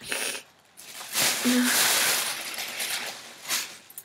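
Rustling and handling noise as purchases are rummaged through off-camera: a short rustle at the start, a longer loud one through the middle, and another brief one near the end.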